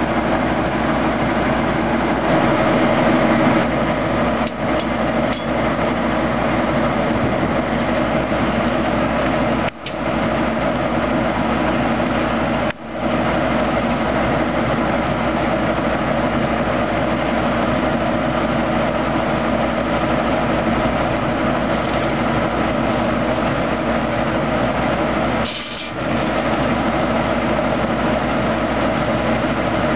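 A 1970s Foley Belsaw circular sawmill running steadily, driven off a tractor's PTO: a constant drone of the tractor engine and the spinning mill. The sound dips briefly three times, about ten, thirteen and twenty-six seconds in.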